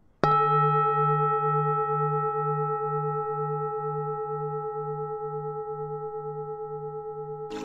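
A singing bowl struck once, then ringing on with several overtones that fade slowly. The low tone wavers in a slow, even pulse.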